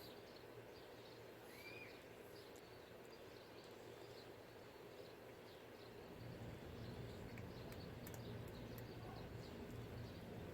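Faint ambience with small birds chirping off and on. A low hum comes up about halfway through.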